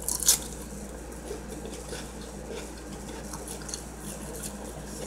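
Faint eating sounds, soft clicks and small crunches, over a steady low hum, with two sharper clicks right at the start.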